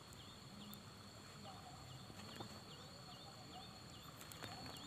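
Near silence: faint outdoor background with a soft, high chirp repeating steadily a few times a second.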